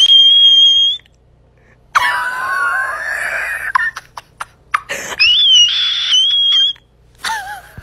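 A woman screaming in a shrill, high-pitched voice: a steady squeal about a second long at the start, a lower wavering cry a couple of seconds in, and another shrill wavering squeal past the middle.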